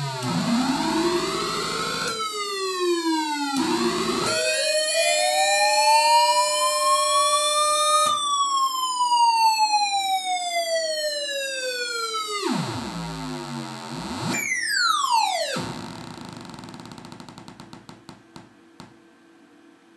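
Hand-built circuit-bent analog noise synth, its sweeping effect gliding up and down in pitch like a siren over a steady low drone. Quick sweeps about every two seconds give way to a long slow rise and fall, then two fast drops. The sound dies away to faint after about sixteen seconds.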